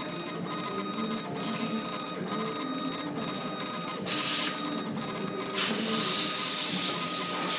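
Laser engraving machine's stepper motors whining in short steady tones that change pitch as the head scans back and forth engraving wood. A loud airy hiss cuts in briefly about four seconds in, then runs steadily from about five and a half seconds.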